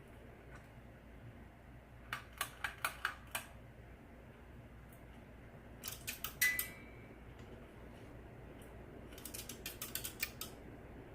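Hampton Bay Southwind ceiling fan running on the floor with a low, steady hum. Three short bursts of rapid clicking come over it, about two seconds in, about six seconds in and near the end.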